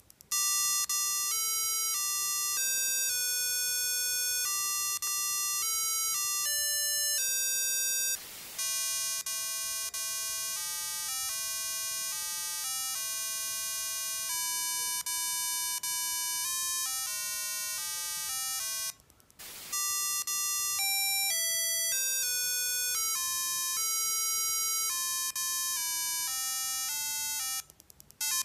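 An Arduino instrument plays a melody of buzzy electronic beeps, one steady note after another. Each note's pitch is set by how far a hand-held board is from its ultrasonic ranger. The melody is cut twice, about 8 and 19 seconds in, by a short burst of static noise.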